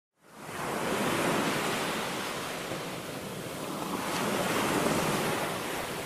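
Sea surf breaking and washing onto a beach, fading in from silence at the start and swelling twice as waves come in.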